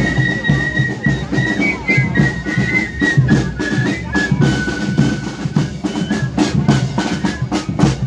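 Fife-and-drum marching band playing a march: flutes carry a high melody over snare drums, bass drum and cymbals beating a regular rhythm.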